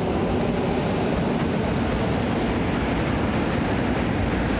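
Steady outdoor rushing noise, heaviest in the low end: wind on the microphone mixed with street traffic.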